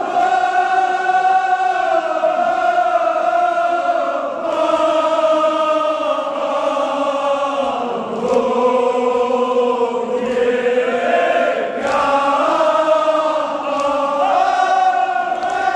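A chorus of men chanting a Kashmiri marsiya, a Shia mourning elegy, together in long held notes that slowly rise and fall in pitch.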